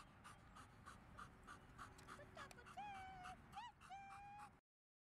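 German Shepherd dog panting quickly and evenly, then whining in three short high notes near the end. The sound cuts off abruptly just before the end.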